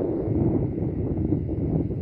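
Wind buffeting the microphone: a low, uneven rumble that swells and dips in gusts.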